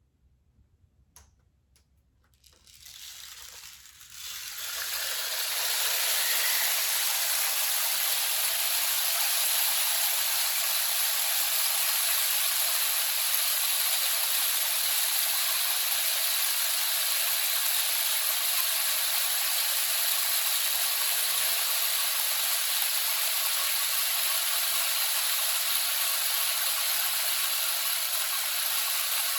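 Rainstick pouring: a steady, shower-like rattle of pellets falling through the tube, with no low tones. It follows a couple of faint clicks, fades in about three seconds in and reaches full level about two seconds later.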